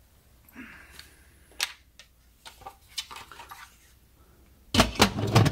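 Instant Pot pressure-cooker lid being handled: a few faint clicks and a short rustle, then, near the end, a loud cluster of clunks and rattles as the lid is set onto the cooker.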